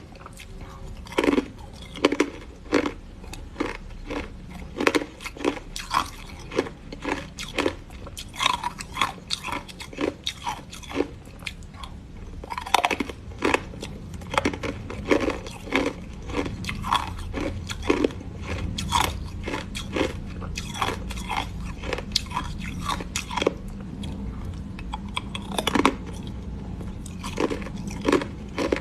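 Close-miked biting and chewing of frozen matcha ice: sharp, brittle crunches come about once or twice a second, with grinding chews between them.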